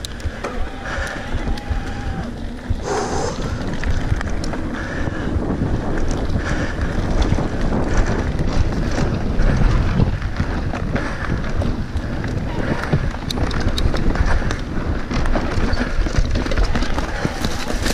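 Mountain bike rolling fast along a dirt trail: tyre noise and the bike rattling with many small knocks over the bumps, under heavy wind rumble on the microphone.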